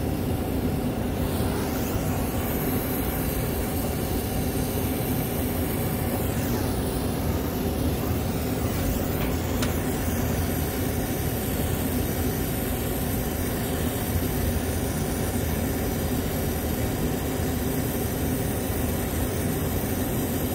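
Steady, unchanging rumble with a hiss over it, from equipment running and a brazing torch burning at the copper filter-drier joint.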